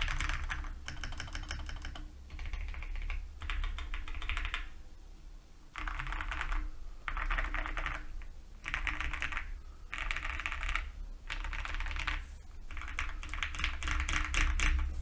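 Typing on an Owlab Jelly Epoch custom mechanical keyboard with lubed Cannonkeys Lavender linear switches and ASA-profile keycaps. It comes in quick runs of key presses about a second long, each followed by a brief pause.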